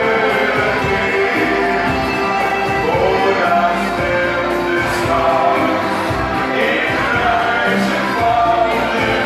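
A live band playing loud through a PA: a man singing into a microphone over accordion and drums, with a cymbal crash now and then.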